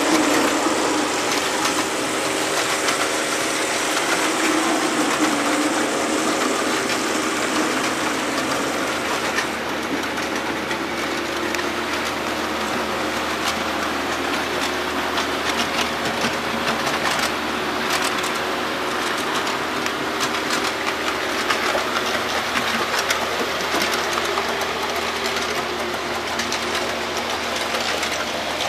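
HO scale model diesel locomotives running with a freight train: a steady mechanical running sound with many small clicks from the wheels over the track.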